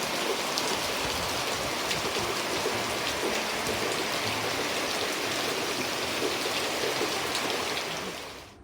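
Steady heavy rain falling, with the clicks of single drops landing close by, fading out just before the end.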